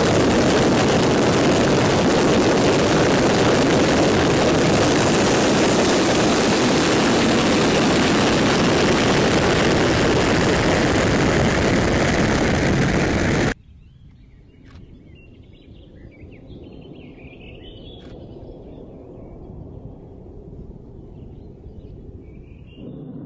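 Soyuz-2.1b rocket's first-stage engines at liftoff, a loud, steady, crackling roar heard close to the pad, which cuts off abruptly about 13 seconds in. After that only a faint low rumble of the rocket climbing far off, slowly growing louder.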